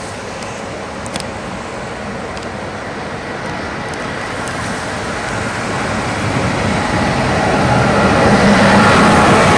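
CFR Class 41 electric locomotive hauling passenger coaches toward the platform: a steady rumble of wheels on rail with the locomotive's electrical hum and whine. It grows louder over the last few seconds as it approaches.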